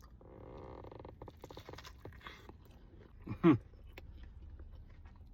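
A person chewing a bite of burger close to the microphone, with soft wet clicks and smacks. About three and a half seconds in, a short loud vocal sound falling in pitch.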